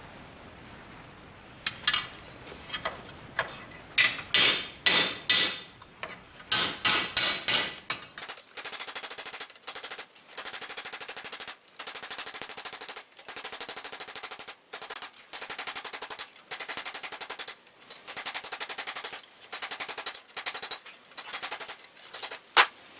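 Hammer blows on a thin steel plate strip held over a vise, bending a railway wheel flange ring into a shallow cone. A few separate strikes come first. From about 8 seconds in, the blows come in rapid runs about a second long, with short pauses between them.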